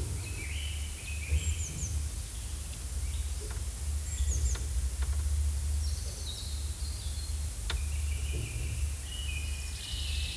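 Forest ambience: songbirds chirping and calling again and again, some calls sliding down in pitch, over a steady low rumble, with a few faint clicks.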